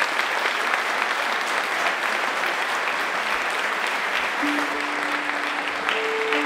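Audience applauding steadily. About four seconds in, held musical notes begin under the applause.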